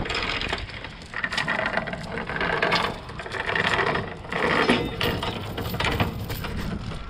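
Steel anchor chain hauled in by hand over a boat's metal bow fitting, rattling and clinking in bursts with each pull.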